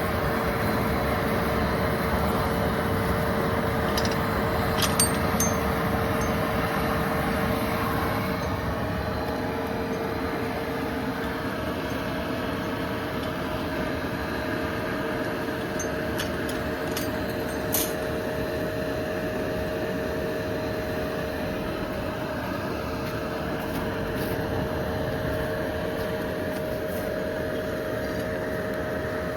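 Steady hum of a fan or blower with two steady tones in it, and a few short clicks, the sharpest about 18 seconds in.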